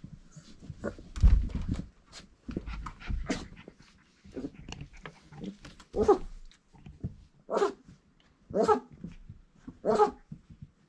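Four-week-old Irish Setter puppies scuffling and bumping about, with low thumps, then from about halfway a run of short high yips and barks, roughly one a second.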